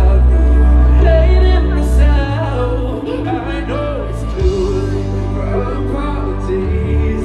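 Live pop song played by a band through a large concert PA, with singing over a heavy bass line; the deep bass drops away for a couple of seconds in the middle and comes back.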